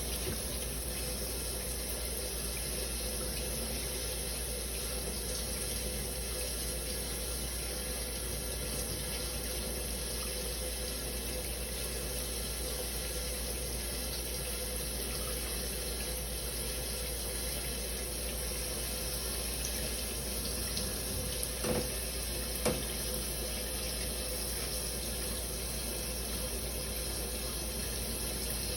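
Shower running steadily: an even hiss of falling water, with two brief knocks about 22 and 23 seconds in.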